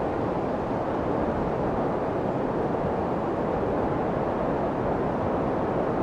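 Steady, even rushing noise of a white-noise track of waves and surf, holding one level with no breaks.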